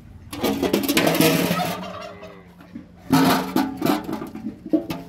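Domestic fowl calling loudly in two bouts of about a second and a half each, rapid and rattling, a second or so apart.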